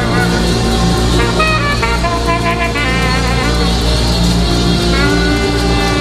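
Live church band music: a horn line plays a melody of short and held notes over a steady bass and drums.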